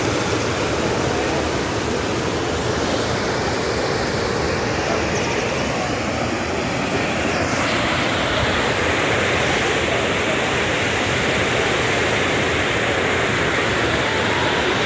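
Floodwater rushing in a fast, steady torrent: a loud, continuous rush of noise that shifts in character about halfway through.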